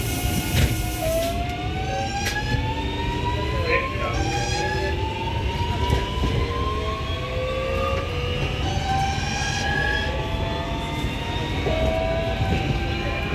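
Alstom Metropolis II metro train's IGBT-VVVF traction inverter (ONIX 233 XHP) whining as the train accelerates: several tones climb steadily in pitch in stages over the steady low rumble of the running train.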